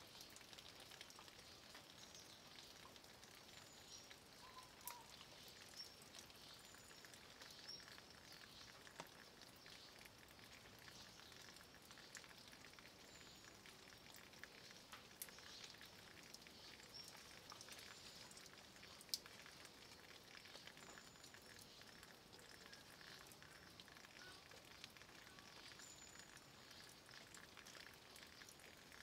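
Light rain falling on a stone wall and leaves: a faint, steady hiss with scattered sharp drop ticks.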